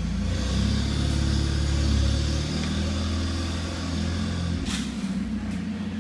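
Low, steady hum of a running motor or engine, easing off a little near the end, with a single click just before that.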